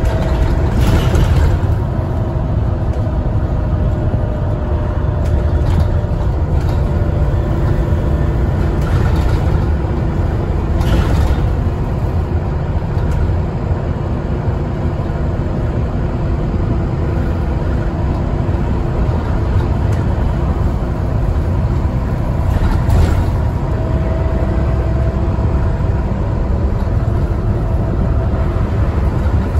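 Alexander ALX400 double-decker bus under way, heard from inside: a steady low engine rumble with a thin turbo whistle that fades early on and returns, rising slightly, in the last few seconds. A few brief hisses break in about a second, ten seconds and twenty-three seconds in.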